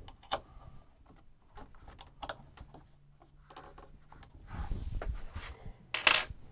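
Scattered light clicks and ticks of a bolt being tightened through the metal top hanger bracket of a sliding barn door, with a rustle of movement about four and a half seconds in and a sharper knock near the end.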